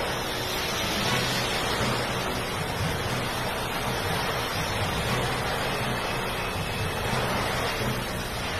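Heavy rain pouring down, a steady even hiss with a low rumble underneath.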